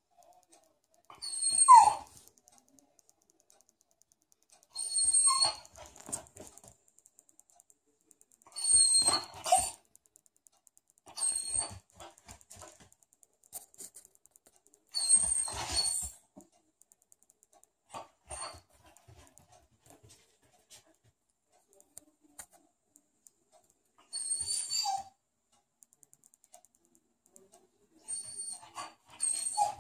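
Dog whining in short bursts of about a second, eight or so spread a few seconds apart, begging for more food.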